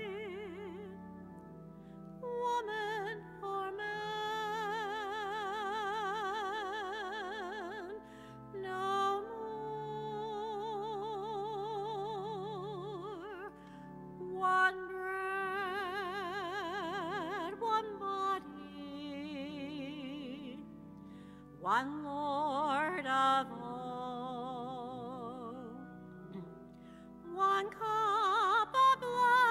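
A female cantor sings a slow communion hymn solo in long held phrases with a wide, operatic vibrato, over sustained accompanying chords.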